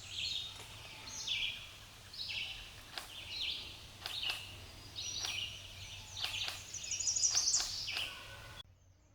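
Birds calling outdoors: short high calls repeating about once a second, with a quicker run of notes about seven seconds in, then cutting off suddenly near the end.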